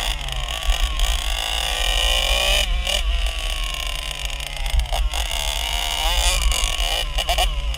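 1984 Yamaha YZ80's two-stroke engine revving as the bike is ridden, its pitch rising and falling again and again.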